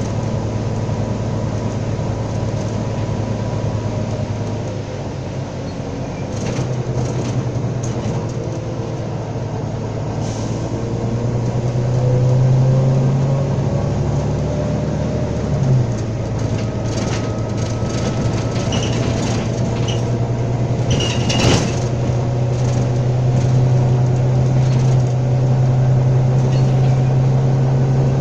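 Volvo B9TL double-decker bus's six-cylinder diesel engine and drivetrain running under way, heard inside the upper deck. The engine note shifts and climbs midway as the bus pulls harder, and a sharp knock comes about two-thirds through.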